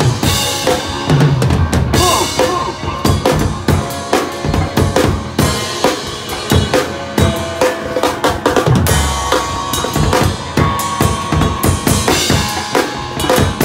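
Noise-rock drum kit played fast and hard from close by: a dense, unbroken barrage of bass drum, snare and cymbal hits. Distorted bass guitar tones sound underneath.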